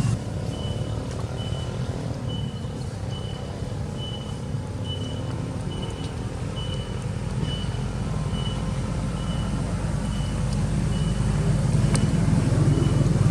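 A steady low motor rumble with a short high beep repeating at one fixed pitch, a little more than once a second, like a vehicle's reversing alarm; the beeps fade slightly near the end.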